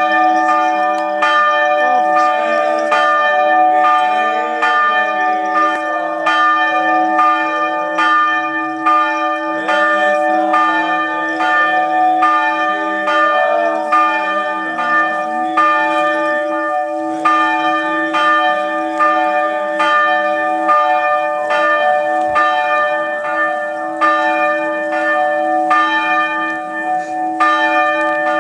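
Church bell struck rapidly and evenly, about two strokes a second, ringing on between strokes.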